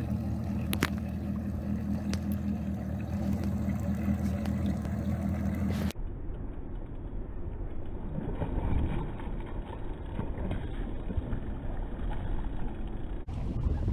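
A bass boat's outboard motor idling steadily. About six seconds in it cuts to wind buffeting the microphone over open water.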